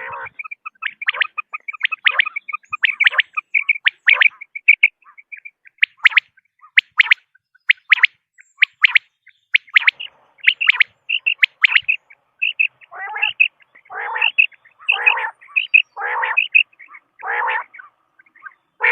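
Common quail calling in a rapid series of short, sharp high notes. About two thirds of the way through, the calls change to longer, harsher notes of about half a second each, roughly one a second.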